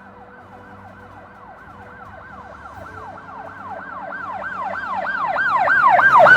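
Emergency vehicle siren in a fast yelp, each cycle falling in pitch, about three a second, growing steadily louder.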